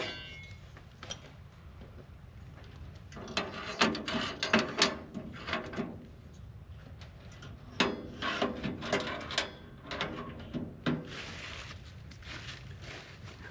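Camping gear being handled during tent setup: two spells of quick clattering clicks and knocks, the first about three seconds in and the second about eight seconds in.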